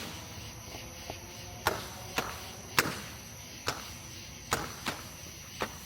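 Fireworks banging at irregular intervals: about seven sharp cracks, each with a short echoing tail.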